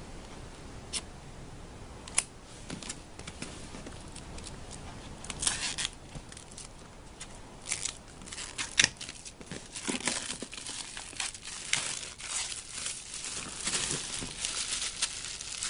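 Packaging on an iPad 2 box being torn open and crinkled by hand: a few scattered clicks at first, then irregular bursts of crackly tearing and crumpling from about five seconds in, growing busier near the end.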